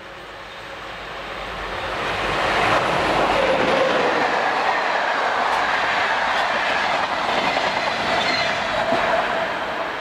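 MÁV class 431 (V43) electric locomotive and its passenger coaches passing close by, wheels running on the rails. The sound swells over the first few seconds as the train arrives, holds steady while the coaches go past, and eases off near the end as the last coach leaves.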